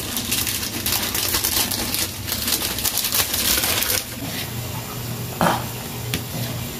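Ramen broth boiling in a frying pan on a gas burner: a dense, rapid crackle and bubbling for about four seconds, then quieter, with a low steady hum.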